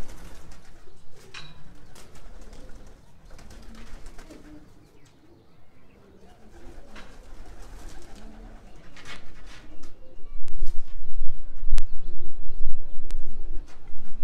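Domestic pigeons cooing in low, repeated phrases, with scattered sharp clicks. From about ten seconds in, a loud low rumble on the microphone joins them.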